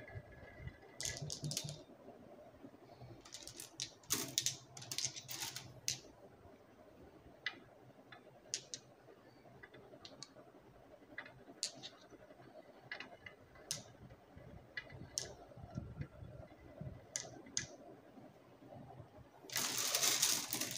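Glass marbles rolling down a wavy wooden groove track, clicking against each other and the wood with scattered sharp clicks and a low rolling rumble in places. Near the end a dense clatter of marbles knocking together lasts about a second.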